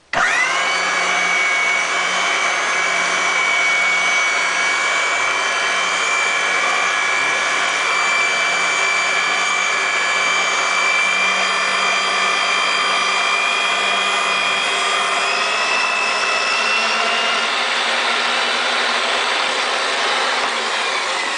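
RIDGID 1233 bench-top pipe threading machine starting abruptly, spinning up within half a second, then running steadily with a high-pitched whine. Its rotating die head is cutting threads on a 3-inch pipe while the machine floods the cut with filtered oil from its own reservoir.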